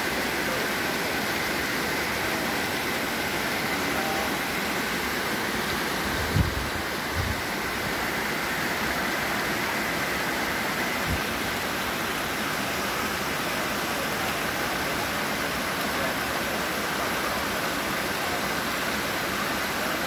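Steady rushing of a tall mountain waterfall, about 90 metres of falling water. A few brief low thumps come about six, seven and eleven seconds in.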